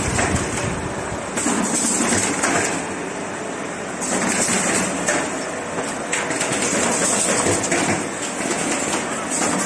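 Automatic corrugated-cardboard partition assembly machine running: steady mechanical clatter with many short knocks, and a high hiss that swells and fades every second or two.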